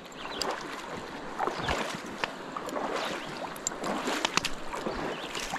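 Stream water splashing and sloshing close by, a steady rush broken by many irregular small splashes.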